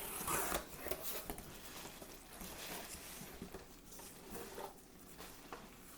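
Packaging rustling and scraping in irregular bursts as a shipping box is opened by hand and its contents unpacked.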